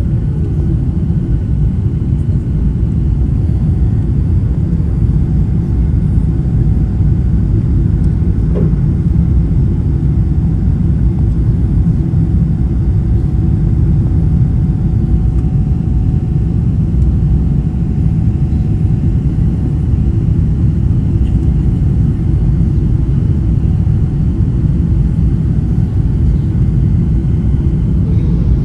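Cabin noise inside an Emirates Boeing 777 airliner: a steady, loud low rumble of the jet engines and airflow, with a faint steady whine above it.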